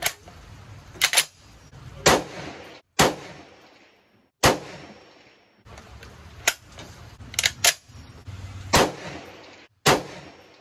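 M1A rifle being handled and loaded: about a dozen sharp metallic clacks and knocks, spread unevenly, as the box magazine is worked into the magazine well and the rifle is set down.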